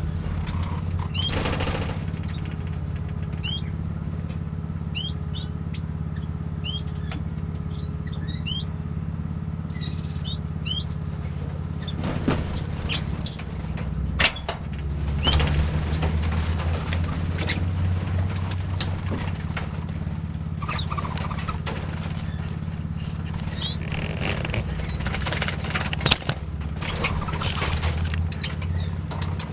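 Small aviary birds (finches and waxbills) giving many short, high, upswept chirps, most densely in the first third, over a steady low hum. A few brief rustling bursts are mixed in.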